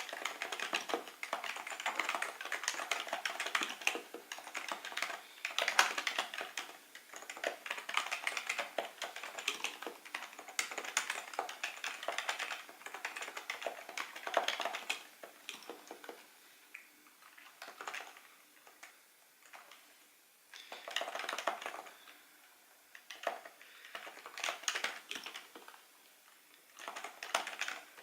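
Typing on a Happy Hacking Keyboard Professional2 Type-S, its silenced Topre capacitive keys making soft, rapid clacks. Fast continuous typing for the first half, then slower, scattered keystrokes with short pauses and brief flurries.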